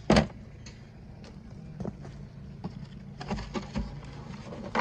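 Footsteps of a person in boots walking over a rough dirt floor: irregular scuffs and knocks, a sharp knock just at the start and a quick cluster a little past three seconds in, over a faint low hum.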